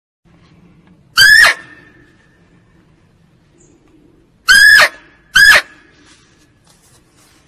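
Female muntjac (kijang) giving three short, sharp barks, the last two close together, each shrill with a quick drop in pitch at its end and a brief ringing tail.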